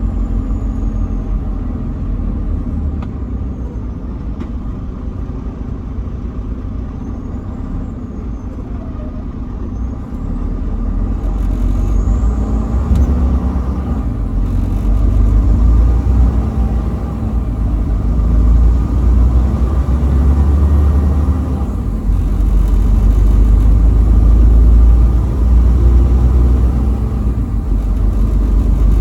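Semi-truck engine and road rumble while driving on the highway, a steady low rumble that grows louder about a third of the way in.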